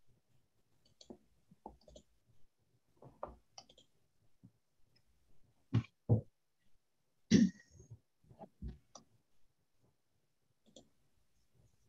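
Scattered small clicks and knocks over a video-call connection, with a few louder thumps a little past the middle: desk, keyboard and microphone handling noises from the participants.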